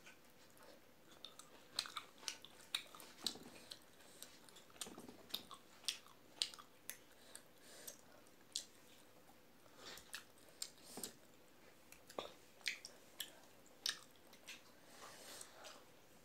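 Close-up mouth sounds of a person eating rice and potato by hand: chewing with many short, irregular smacks and clicks.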